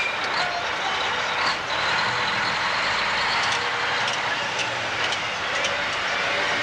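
Mack dump truck on the move: steady diesel engine and road noise, with a few faint clicks or rattles.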